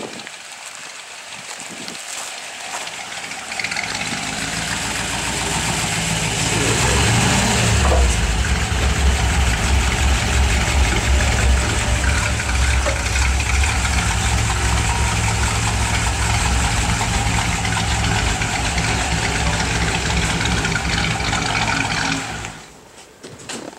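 A 1957 Chevrolet's engine running, building up over the first few seconds with a brief rev, then running steadily with a deep, loud note until it cuts off near the end.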